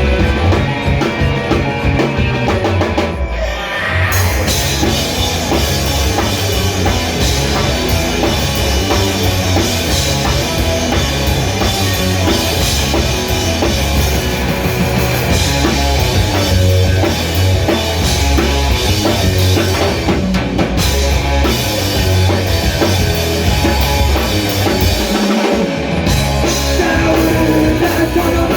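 A rock band playing an instrumental passage live, with a full drum kit, bass and electric guitars. The band briefly thins out about three seconds in, then the full band comes back in.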